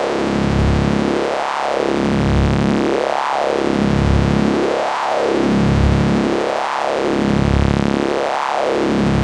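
Synthesized science-fiction electricity effect: a dense electric buzz whose tone sweeps up and then back down in a steady cycle, about once every second and three quarters.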